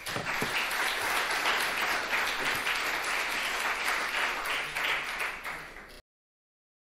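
Audience applauding: dense clapping that starts at once, eases a little towards the end and cuts off suddenly about six seconds in.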